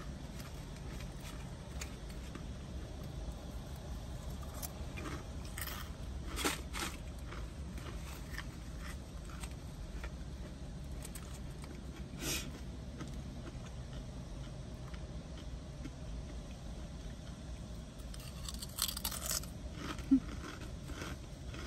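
Doritos Minis tortilla chips being eaten from their can: a few scattered crunches and chip rattles as a hand reaches into the canister, over a steady low hum.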